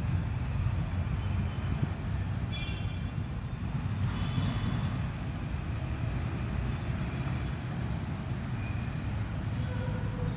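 Steady low rumble of passing heavy traffic or a train, with brief high-pitched squeals about two and a half and four seconds in.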